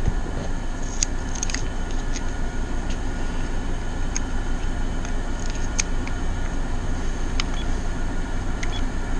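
Steady hum of room air conditioners running, with a few faint light clicks over it.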